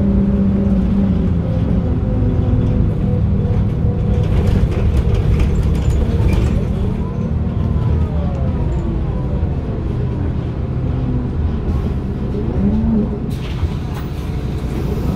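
MAN NM 243 midibus under way, heard from inside: its MAN D0836 six-cylinder diesel running with the ZF Ecomat automatic gearbox. A whine climbs and then falls in pitch about halfway through, and a hiss joins near the end.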